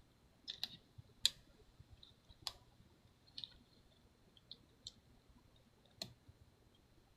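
Light, sharp clicks and taps, about seven spread unevenly over several seconds, of small tools and a flex-cable connector being lined up and pressed into its socket on a MacBook Pro's logic board.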